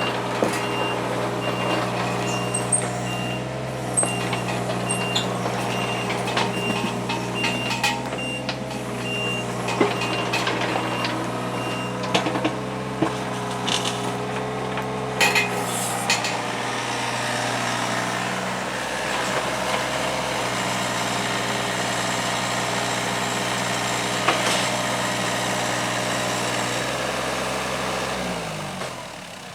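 Hitachi 35 mini excavator's diesel engine running steadily under hydraulic work, with scattered knocks and cracks and a steady string of alarm beeps for about the first twelve seconds. Near the end the engine winds down toward idle.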